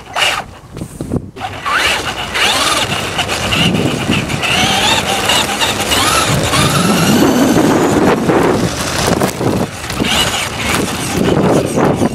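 Traxxas Slash 2WD RC truck's electric motor and gears whining, rising and falling in pitch with the throttle, over a steady rattle of tyres and chassis on brick paving, heard from a camera mounted on the truck.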